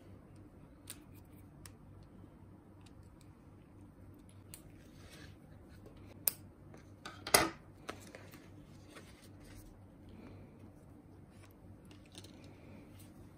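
Scissors snipping, with a sharp click about six seconds in and a louder snip just after, among soft clicks and rustles.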